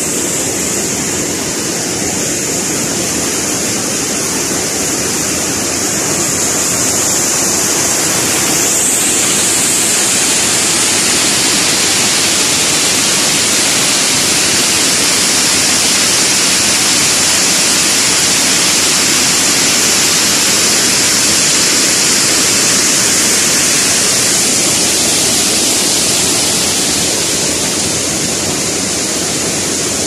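River water rushing over small waterfalls and rock ledges into pools, a steady loud rush that grows brighter and fuller about nine seconds in.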